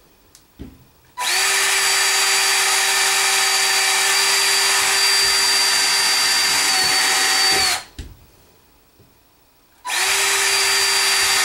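Greenworks 24-volt cordless drill drilling pilot holes upward into a wooden header board: a steady high whine that runs about six seconds, stops, then starts again near the end.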